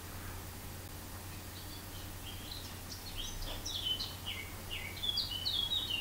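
Small birds chirping in the background: a run of short, quick, falling chirps that starts about two seconds in and grows busier near the end, over a faint steady low hum.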